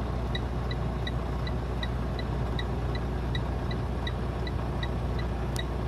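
Semi-truck engine idling with a steady low rumble, over an even electronic ticking about three times a second from the truck's flashers while it sits parked on the shoulder.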